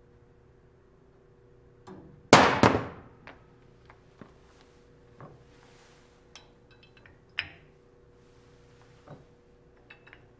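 A stack of metal slotted masses on a hanger crashes down onto the bench with a loud double clang as the loaded wire breaks, then several small clinks and knocks as the masses are handled.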